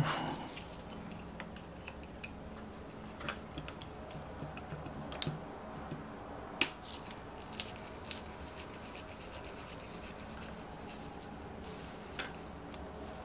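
Scattered small metallic clicks and ticks of a screwdriver and loose parts inside an OS FF-240 Pegasus model engine's crankcase as the connecting rod screws are worked on, with one sharper click about six and a half seconds in.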